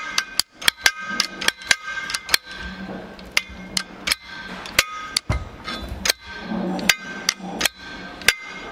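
Sharp metallic clicks and taps with brief ringing from a Haldex air disc brake caliper as its adjuster mechanism is worked with a metal rod, checking that the newly fitted repair kit inside operates. The clicks come quickly and irregularly for the first couple of seconds, then more sparsely.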